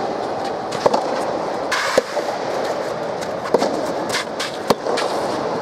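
Soft tennis rally: rackets strike the soft rubber ball four times, about one to one and a half seconds apart, over a steady background murmur.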